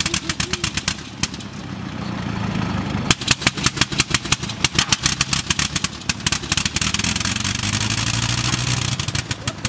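Avro 504K's Gnome rotary engine running, a rapid crackle of separate firing pops. Twice the crackle eases into a smoother, steadier drone for a second or two before the pops pick up again.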